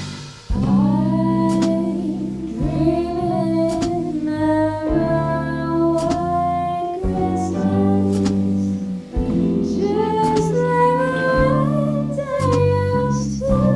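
Jazz combo playing a Christmas tune: a melody line over sustained bass and chords, with regular drum hits. A brief drop-out near the start gives way to the band coming back in about half a second in.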